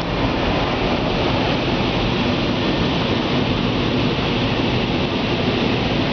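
Automatic gantry car wash's drying blowers passing over the car, a steady loud rush of air heard from inside the cabin.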